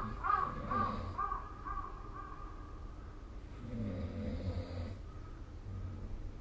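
A quick series of about six short pitched calls, evenly spaced and fading, in the first two seconds or so. A person snores once, a low rumble, about four seconds in.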